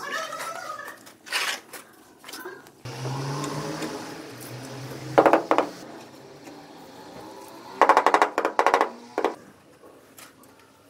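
A notched steel trowel scraping through tile adhesive, then a floor tile scraping and clattering as it is bedded into the mortar, in short rattling bursts about five seconds in and again from about eight to nine seconds.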